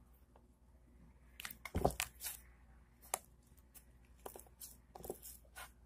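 Amoeba slime being worked by hand to make a bubble: quiet, scattered sticky crackles and small pops, the loudest cluster about two seconds in.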